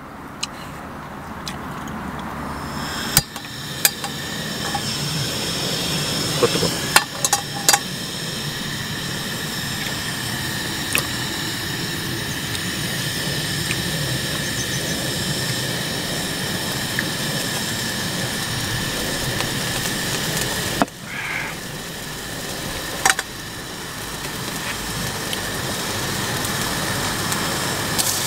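Portable gas-canister camp stove burning with a steady hiss under a frying pan, with a few light clicks of tongs and metal. The hiss dips briefly about two-thirds of the way through.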